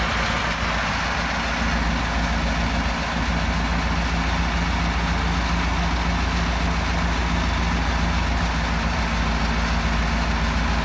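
Cat diesel engine of a 1977 International Loadstar 1850 dump truck running steadily at a slightly high idle. Its PTO is engaged and drives the hydraulic hoist, slowly raising the dump box.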